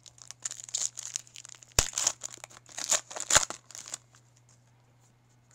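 Foil wrapper of a Topps Chrome baseball card pack crinkling and tearing as it is ripped open, with two sharp snaps about two and three and a half seconds in. The crinkling stops about four seconds in.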